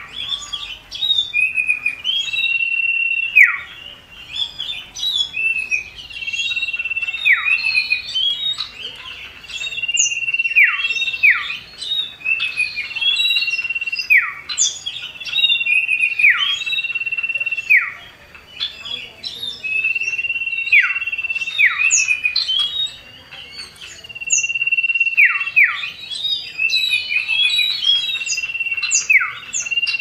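Common iora (cipoh) singing: a long high whistle held for about a second that drops sharply at the end, repeated every few seconds, with short chirps in between.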